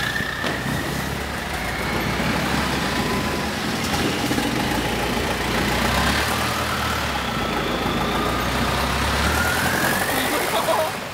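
Long-tail boat engine running at speed, heard from on board, with water and wind rushing past. Its whine slowly falls, then climbs again near the end.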